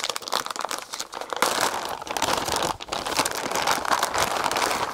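Plastic packaging bag crinkling and rustling as it is handled and opened, a steady crackle that gets louder about a second and a half in.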